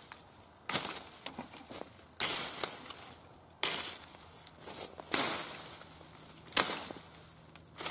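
Footsteps crunching through dry grass and bramble stems: about five crackling steps, roughly a second and a half apart, each starting sharply and fading.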